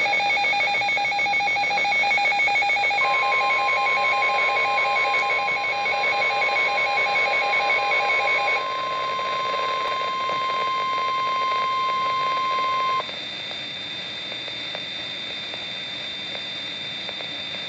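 Weather alert radio sounding its alarm: a rapid pulsing beep, joined about three seconds in by the steady single-pitch NOAA Weather Radio warning alarm tone. The beeping stops a little past halfway, and the alarm tone cuts off suddenly about thirteen seconds in, leaving a fainter steady tone and hiss. The alarm signals an incoming severe thunderstorm warning broadcast.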